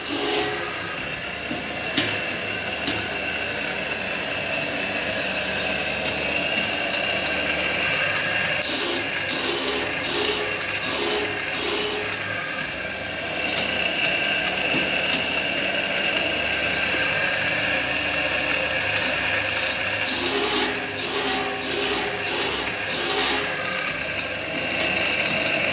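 Saw-sharpening machine running, its grinding wheel working the teeth of a large circular saw blade: a steady machine whine, broken twice by a run of short, evenly spaced grinding strokes.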